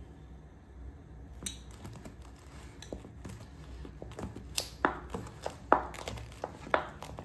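Metal potato masher knocking and scraping against a stainless steel bowl as boiled potatoes are mashed into flour to make a dough. The knocks are irregular, coming faster and louder from about halfway through.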